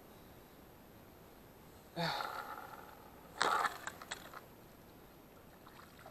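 A pike pulled up through an ice hole with a short sharp splash, then slapping and flopping on the wet ice in a few quick smacks. A short vocal grunt comes about a second before the splash.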